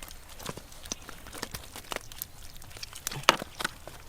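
Scattered short clicks and knocks at an irregular pace, the loudest a pair about three seconds in.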